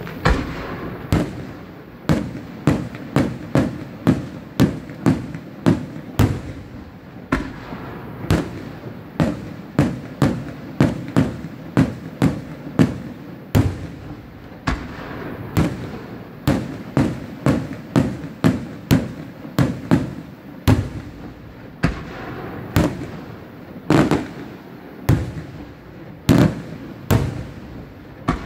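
Aerial firework shells bursting one after another in a steady run of sharp bangs, about two a second.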